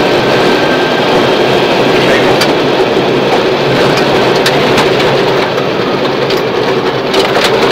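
Inside the cabin of a Subaru Impreza rally car at speed on gravel: the flat-four engine runs hard under a steady engine note. Over it comes a constant rush of tyre and gravel noise, with sharp ticks of stones striking the car a few times.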